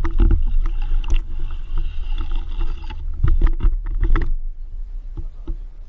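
A fishing reel being cranked to retrieve a topwater frog lure: a steady whine for about three seconds, with sharp clicks and knocks that come thickest around three to four seconds in. Low wind and handling rumble on a body-worn camera's microphone runs throughout.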